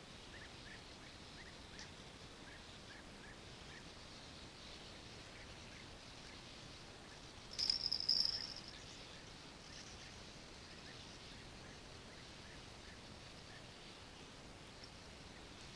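Quiet open-air ambience with faint, repeated soft chirps, and a brief loud scraping rustle about eight seconds in as fishing tackle is handled.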